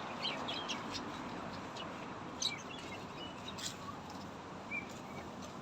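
Caged birds chirping: short scattered chirps over a steady background hum.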